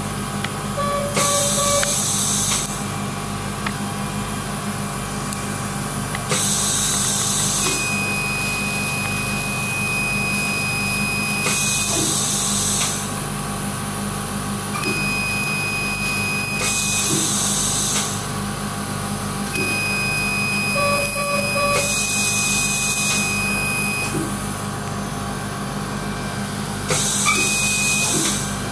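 Surgical laser in use during nostril-opening surgery: a steady high electronic beep is held for a few seconds at a time, four times. Between and overlapping the beeps come about six short bursts of hissing air, over a constant low hum of theatre equipment.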